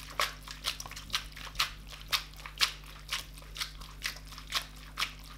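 Spaghetti coated in egg-yolk and pecorino cream being tossed in a shaken stainless steel pan, a short wet slap of the pasta about twice a second.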